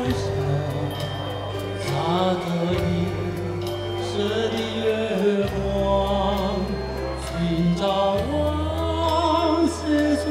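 A man singing a slow song into a microphone, amplified through a PA, over electronic keyboard accompaniment with held bass chords and light percussion ticks.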